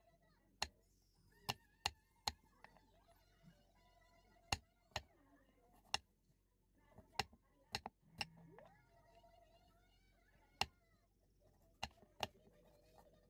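Kitchen knife chopping cashews and almonds on a wooden chopping board: sharp, irregular knocks of the blade on the board, about one a second. Faint voices in the background.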